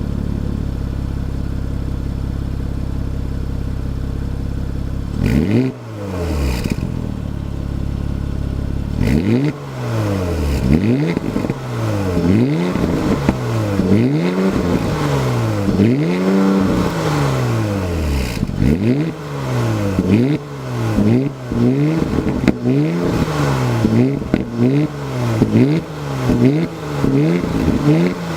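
2016 Porsche Cayenne with sport exhaust idling steadily, then revved: one rev about five seconds in with a couple of sharp cracks from the exhaust, then a long run of quick throttle blips, each rising and falling in pitch, coming faster toward the end.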